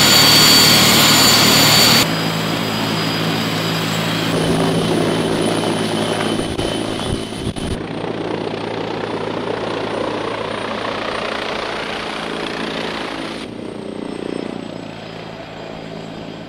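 T129 ATAK attack helicopter's twin turboshaft engines and rotor running, a loud rushing noise with a steady high whine. It is loudest in the first couple of seconds and changes abruptly several times where the footage is cut between takes.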